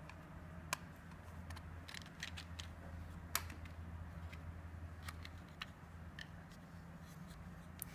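Light plastic clicks and taps from handling opened solar power bank casings, their solar-panel lids lifted and the units moved about, with two louder knocks, one about a second in and one about three and a half seconds in. A faint steady low hum lies underneath.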